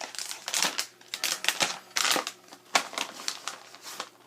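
Plastic snack bag crinkling in quick, irregular crackles as it is handled and opened.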